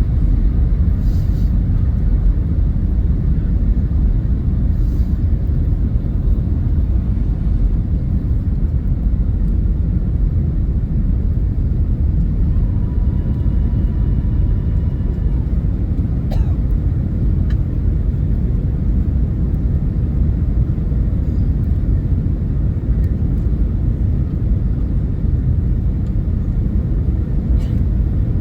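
Boeing 757-200 in flight, heard as a steady low rumble of engines and airflow, with a faint held tone for a few seconds about halfway through and a single click soon after.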